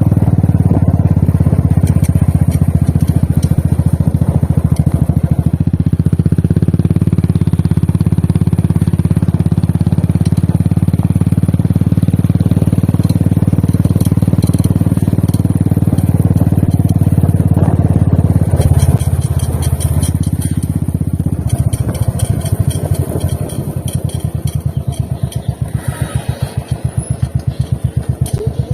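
Royal Enfield Classic 350's single-cylinder engine and exhaust running under way at a steady throttle. About two-thirds of the way through, the note drops and the engine settles into a slower, loping beat in which each firing pulse can be heard separately.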